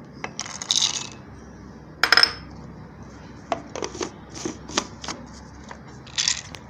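Clinks and taps of bowls and a grinder jar being handled, with a few short rustling bursts. There is no grinder motor running.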